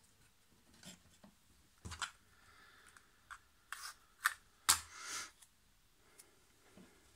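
Masking tape being handled and pulled for taping off a plastic chassis part: a run of short scratchy rustles and clicks, the loudest and longest about two thirds of the way through.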